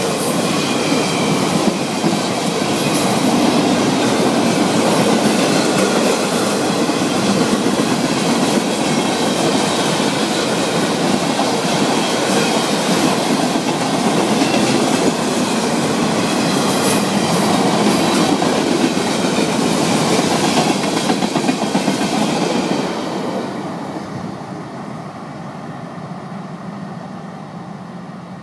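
Florida East Coast Railway mixed freight cars rolling past close by: steady wheel-on-rail noise with clickety-clack over the rail joints and a thin high wheel squeal. It falls away about 23 seconds in as the end of the train passes.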